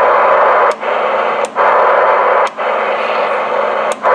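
Sears Roadtalker 40 CB radio's speaker giving loud receiver hiss with a faint steady 1 kHz test tone buried in it: a weak signal near the limit of the receiver's sensitivity, still heard through the noise. The hiss cuts out briefly four times, each time with a click.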